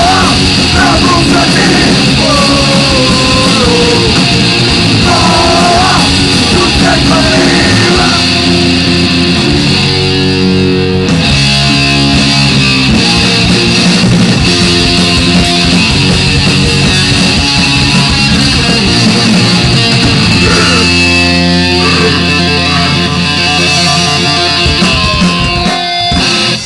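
Punk rock band playing live: loud distorted electric guitars, bass and drums, with a singer's shouted vocal over the first several seconds, then the instruments alone. The music stops abruptly at the very end.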